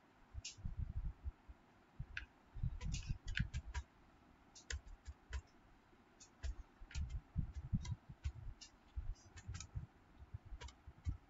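Computer keyboard typing: irregular clusters of short keystroke clicks, each with a soft low thud.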